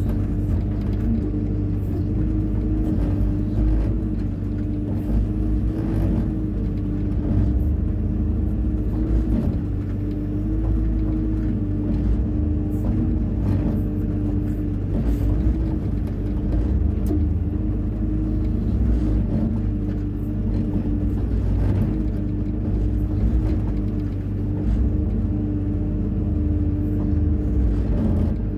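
Hyundai 140 wheeled excavator's diesel engine running steadily as it works, a constant hum over a low rumble, with faint scattered knocks.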